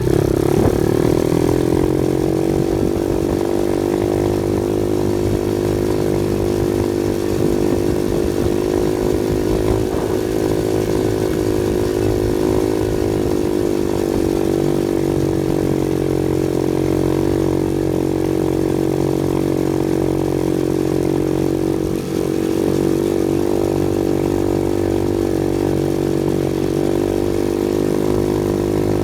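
Off-road vehicle's engine running at a steady speed, its pitch holding nearly constant, with a brief dip in loudness about three-quarters of the way through.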